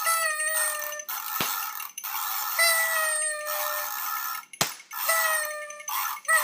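New Year's party noisemakers: party horns blown in four short toots of about a second each, each sagging slightly in pitch, over a constant clatter of rattles. Two sharp pops go off, about a second and a half in and again near the middle.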